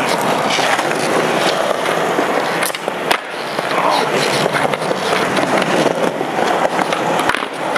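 Skateboard wheels rolling over paved ground in a steady rumble, with a couple of sharp clacks about three seconds in.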